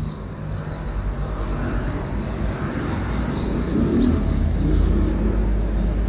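Low rumble of a motor vehicle, growing louder about four seconds in.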